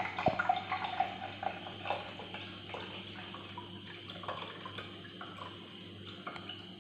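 Herbal drink poured from a plastic jug through a metal tea strainer into a glass mug: liquid splashing and trickling, louder in the first second or two and settling to a thinner trickle.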